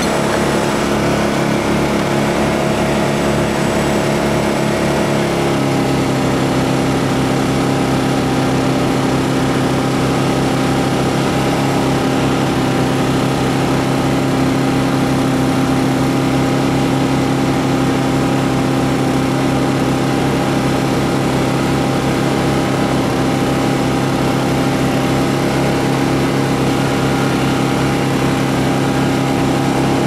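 An engine running steadily close by, stepping up to a higher speed about five seconds in and then holding there.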